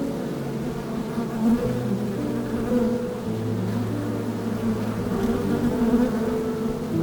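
Bees buzzing: several overlapping steady drones that shift in pitch now and then.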